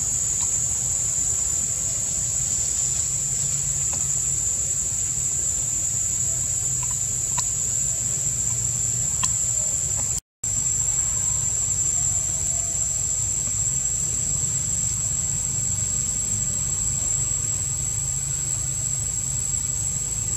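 Steady high-pitched insect drone over a low rumble, with a few faint ticks; the sound cuts out completely for a moment about ten seconds in.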